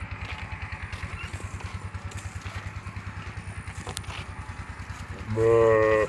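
An engine running steadily with an even, fast thudding beat. About five seconds in, a loud call held on one pitch cuts in over it.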